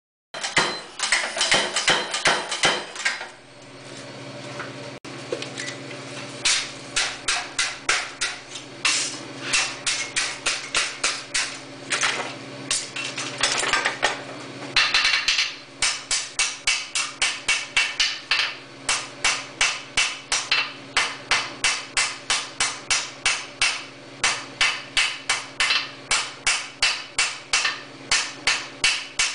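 Rapid blows of a power hammer on white-hot iron about a second in, then a steady hum. From the middle on, a hand hammer strikes the hot iron on an anvil in an even rhythm of about two to three blows a second, setting a forge weld at a frame corner.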